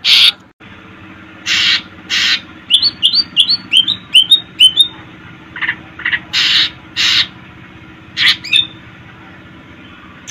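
Cucak ijo (green leafbird) singing: short harsh, scratchy notes with pauses between them, and in the middle a quick run of about eight rising chirps.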